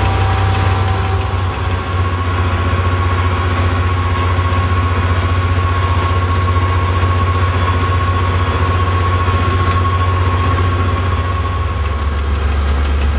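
Swedish T44 diesel-electric locomotive under way, heard from inside its cab: its EMD 12-645 V12 two-stroke diesel runs with a steady low drone. A steady high tone sits over it and fades out near the end.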